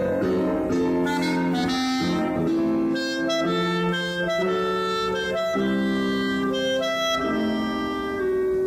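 Clarinet playing a classical melody with piano accompaniment: a run of notes that ends on a long held note.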